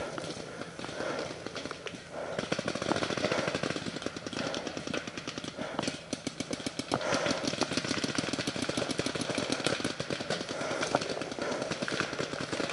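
Paintball markers firing in rapid strings of sharp pops, several shots a second, heaviest through the middle.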